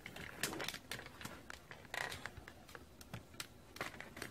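Handling noise at a workbench: scattered light clicks and taps, with two brief rustles about half a second and two seconds in.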